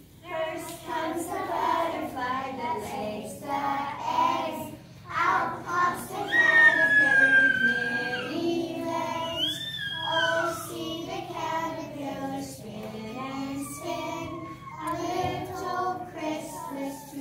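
A small group of young children singing a song together, their voices coming in about a quarter second in, with some high notes held.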